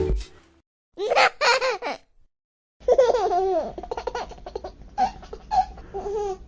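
A baby laughing. A short burst of laughter comes about a second in, and after a brief pause a longer run of repeated laughs and giggles follows.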